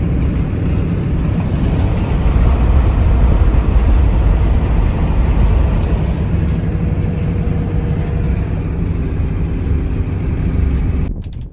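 Truck hauling a loaded trailer down the road: a steady engine drone with heavy low road rumble, which cuts off abruptly near the end.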